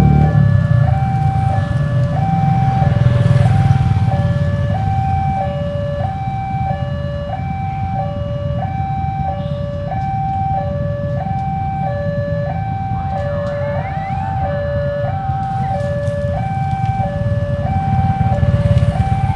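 Railway level-crossing warning alarm sounding a steady two-tone signal that alternates between a higher and a lower note about every two-thirds of a second, warning that a train is approaching. A low rumble of waiting vehicles' engines sits underneath and is loudest at the start.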